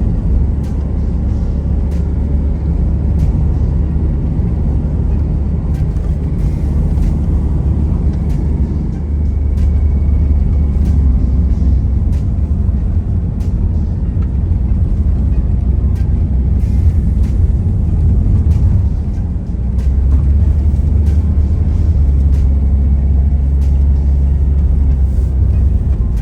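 Car in motion, heard from inside: a steady low road-and-engine rumble with scattered small clicks and knocks.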